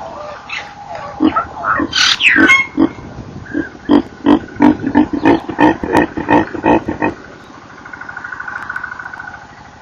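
Chacma baboon squealing and screaming, the distress cries of a baby baboon during an attempted snatch: a few sharp cries and a high squeal that glides up and down about two seconds in, then a rapid run of loud cries, about four a second, that stops about seven seconds in.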